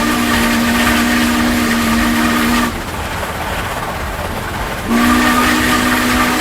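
Air horn sounding two long, steady blasts, over a low rumble. The first lasts until nearly three seconds in, and the second starts about five seconds in.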